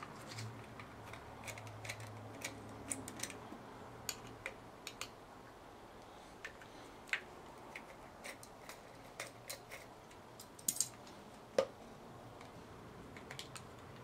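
Scattered light clicks, taps and small knocks from handling a hard drive and its snap-on plastic mounting rails inside an open desktop PC's metal case, with a couple of sharper knocks about three-quarters of the way through.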